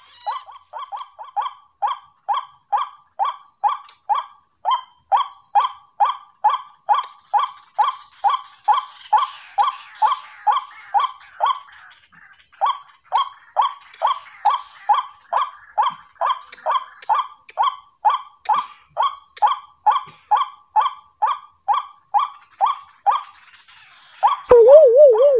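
White-breasted waterhen call, a short downward-sliding 'kru-ak' note repeated very evenly at about two a second, as played from a lure recording through a small horn loudspeaker to draw the birds into snares. The calling breaks off briefly about halfway, and a louder wavering call cuts in near the end.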